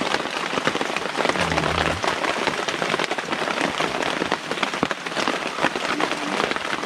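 Steady rain pattering on a surface: a dense, even run of small drop ticks.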